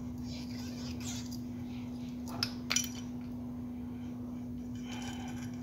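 Two small sharp metallic clicks, close together, as the metal spool of a spinning reel is slid off its main shaft, over a steady low hum.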